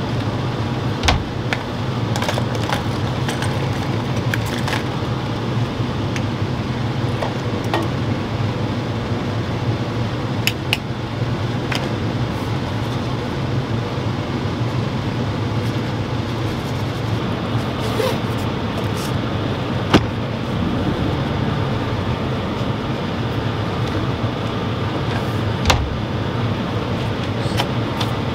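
Steady low hum of a running air conditioner and generator. A few sharp clicks and knocks of small things being handled and set down on a counter.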